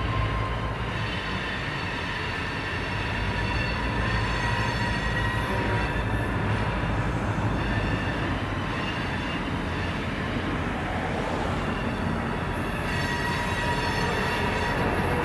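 EMD GP38-2 diesel locomotive's 16-cylinder two-stroke engine running steadily as it rolls slowly past, pulling covered hoppers. The low engine rumble carries a thin, steady high whine above it.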